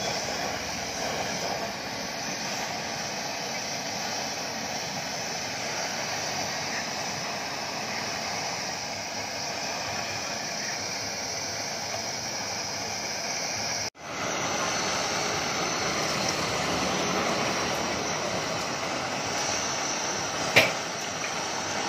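Gas blowtorch flame hissing steadily on a crucible of melting metal. The sound breaks off for an instant about two-thirds through, then the same steady noise resumes. Near the end there is one sharp knock.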